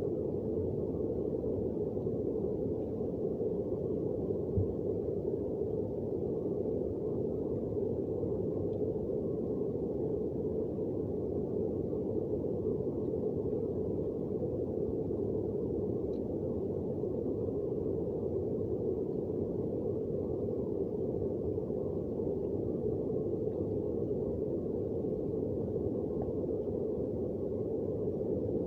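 Heavy rain as a steady, muffled rush with no breaks or changes.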